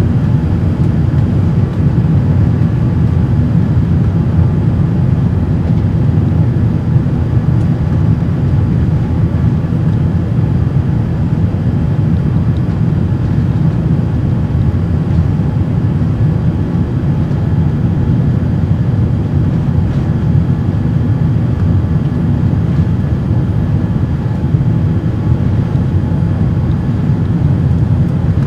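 Steady in-flight cabin noise of a Boeing 787-8 Dreamliner, heard inside the cabin: a loud, even low rumble of airflow and its General Electric jet engines with no change or sudden events.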